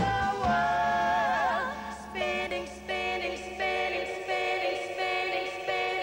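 Female vocal trio singing in harmony with a live backing band. A long held chord ends in vibrato, then shorter rhythmic phrases follow over the band.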